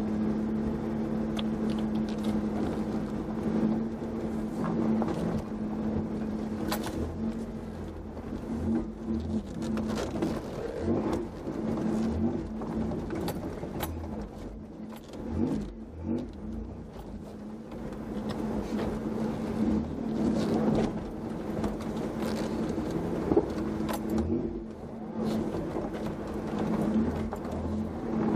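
A 4x4's engine running at low speed, heard from inside the cab as a steady hum, with scattered knocks and rattles throughout.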